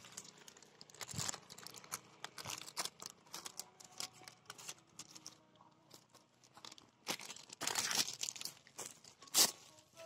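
Plastic chips packet crinkling and crackling in irregular rustles, with louder bursts about seven seconds in and again near the end.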